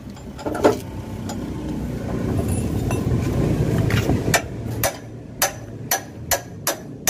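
Sharp metallic clicks, about two a second, from a wrench working the engine-oil drain plug under a truck, starting about four seconds in after a low rumble.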